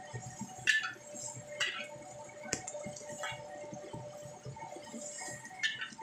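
Metal spatula scraping and knocking against a wok while stir-frying sliced shallots, garlic and chilies, with about five sharp scrapes spread unevenly through the stirring.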